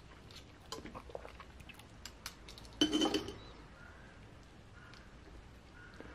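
Knife and fork clicking and scraping against a small cast-iron skillet while cutting steak, then a louder, ringing clink about three seconds in as the knife is set down on a ceramic plate.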